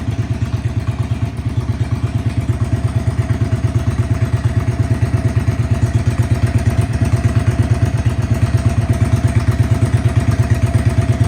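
A 2017 Yamaha XVS650's air-cooled V-twin idling steadily through aftermarket Vance & Hines pipes, with an even, low, pulsing exhaust beat.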